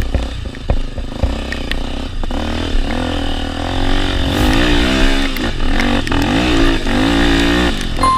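Trail motorcycle engine being revved up and down repeatedly off-road, its pitch rising and falling several times as the throttle is worked, with a few sharp knocks in the first couple of seconds.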